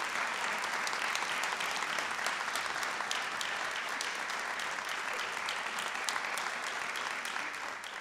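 Audience applauding steadily, with single sharp claps standing out from the dense clapping.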